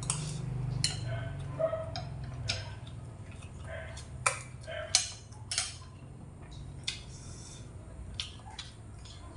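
Eating at the table: chewing, with about a dozen irregular sharp clicks of a metal spoon and chopsticks against a ceramic plate. A low hum fades out over the first couple of seconds.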